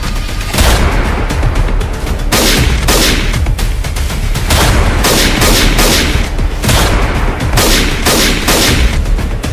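Film gunshot sound effects: a long exchange of single shots, roughly one or two a second, each with a ringing tail, over dramatic background music.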